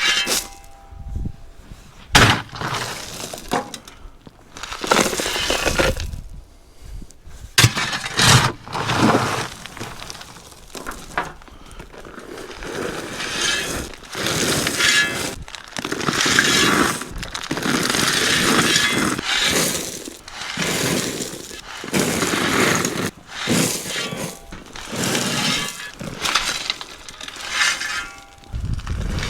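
Gravel being moved by hand around a drain pipe, the stones crunching and clattering in repeated irregular bursts.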